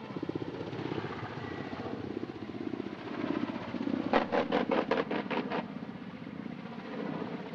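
Ka-52 attack helicopter's coaxial rotors giving a fast, steady throb. About four seconds in comes a quick run of about eight sharp pops, about five a second, as decoy flares are fired.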